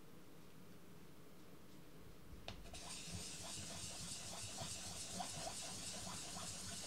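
A 3D-printed master die being wet-sanded in circles on wet 600-grit wet/dry sandpaper over glass, heard as a steady, faint, scratchy hiss. The hiss starts about two and a half seconds in, just after a small click as the die goes back down on the paper.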